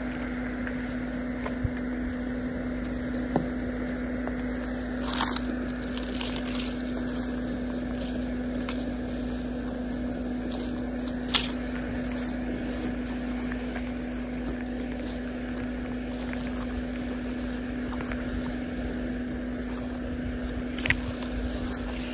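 Mahindra Scorpio N's 2.2-litre diesel engine running at a steady low note as the SUV crawls through tall grass, with a few sharp clicks and snaps scattered through.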